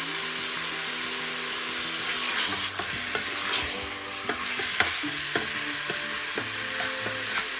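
Meat and onion sizzling as they fry in oil in an Instant Pot's metal inner pot. A wooden spoon stirs through them, with a few short knocks and scrapes against the pot.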